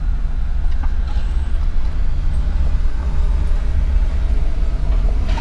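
Pickup truck engine running at low speed with a steady low rumble, heard from inside the cab.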